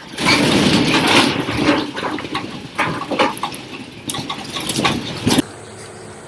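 Loud rumbling with rattling and repeated knocks and clatters, as of a room's contents shaking in an earthquake; it stops abruptly about five and a half seconds in, leaving a steady faint hiss.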